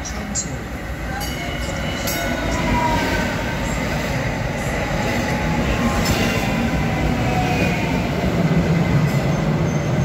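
DART light rail train running on the track at the station, getting steadily louder, with faint wheel squeal.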